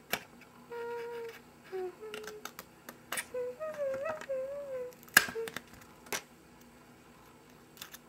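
A child humming a few short, wavering notes, with a handful of sharp clicks in between, the loudest about five seconds in.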